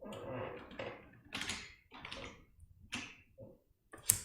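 A run of short, irregular scuffs and knocks, about two a second, with one sharp click near the end.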